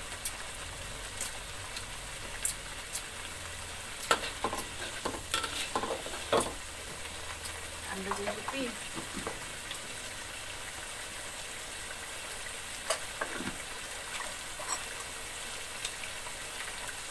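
Balinese spice paste (bumbu Bali) frying in a wok with a steady sizzle, while a metal spatula stirs and scrapes it, clinking against the pan now and then.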